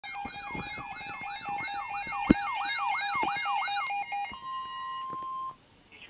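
Several weather radios sounding their alert alarms together: a siren-like rising sweep repeating about three times a second over a steady beep, a high warble and a two-note tone, with a few knocks. The alarms stop about four seconds in. A single steady tone then holds for about a second: the weather radio warning alarm tone that comes before the flash flood warning broadcast.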